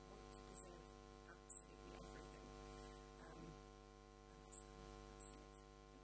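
Faint steady electrical hum with a few soft clicks.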